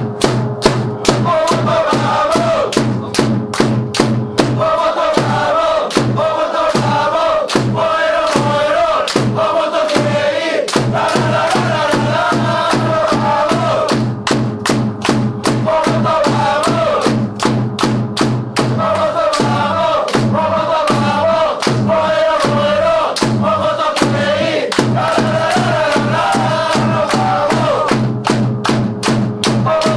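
Football supporters singing a chant in unison over a steady drumbeat, the melody repeating in phrases of a few seconds.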